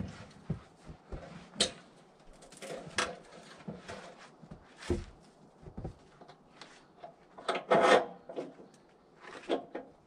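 Scattered knocks, clunks and scrapes of a frozen log being handled on the steel bed of a manual sawmill, its engine not running. The loudest is a burst of scraping and clatter about eight seconds in.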